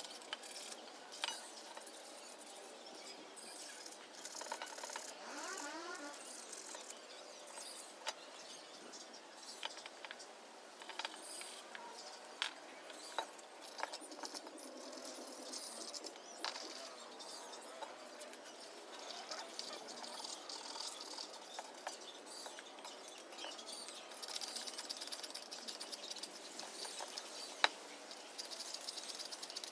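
Scattered light metal clicks, taps and the odd sharper knock as steel frame members and bolts of a hydraulic press frame are handled and fitted together, with faint bird chirps in the background.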